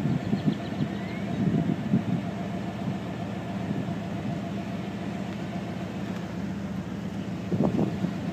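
A vehicle engine idling: a steady low hum that runs on unchanged.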